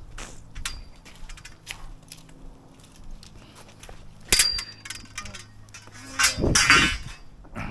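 Metal tools and parts clanking and knocking during plumbing work, with one sharp ringing clang about four seconds in and a longer, louder clatter near the end.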